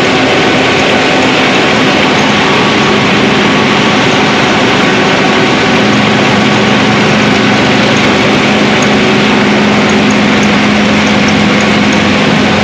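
Small rice milling plant running: a loud, steady mechanical din of motor-driven hullers, belt pulleys and grain screens working together, with a steady low hum that grows a little stronger about halfway through.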